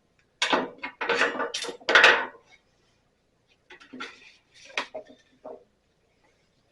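Tools and metal parts clattering and knocking as they are handled and set aside on a workbench: a busy run of knocks in the first couple of seconds, then a fainter few a second or so later.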